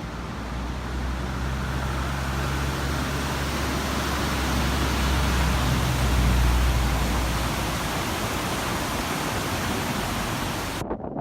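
A motor vehicle's low engine hum building to a peak about six seconds in and then fading, over a steady rushing noise. The sound cuts off abruptly just before the end.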